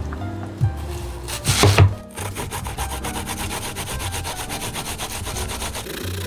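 Fast, even rasping strokes, several a second, start about two seconds in and keep going, over background music.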